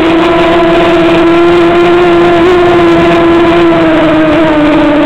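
Small remote-controlled aircraft's motors and propellers running with a loud, steady hum at a near-constant pitch, which sags slightly near the end.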